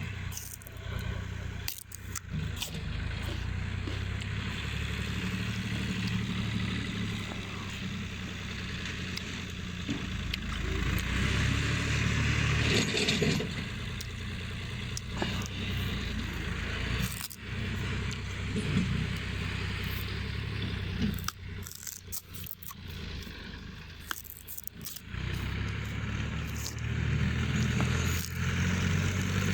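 Metal clinking, jangling and scraping, like tools and brake parts being handled, over a steady low engine hum. The sound drops out briefly a few times.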